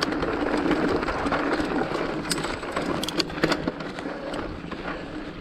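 Mountain bike rolling over a stony singletrack: a steady rumble and crunch of tyres on rock and gravel, with a run of sharp rattles and knocks from the bike about halfway through.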